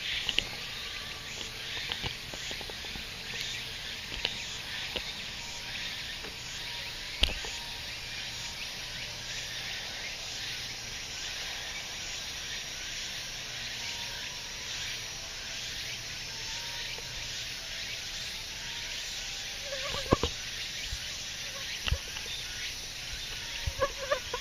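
Steady summer insect chorus, a dense high buzz of rapid ticking. Near the end a mosquito whines close by, with a few knocks from handling.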